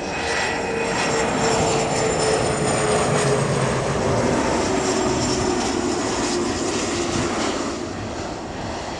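Fokker 70 jet on landing approach, its twin rear-mounted Rolls-Royce Tay turbofans running with a steady rushing noise and high whining fan tones. The whine sinks slowly in pitch as the jet passes.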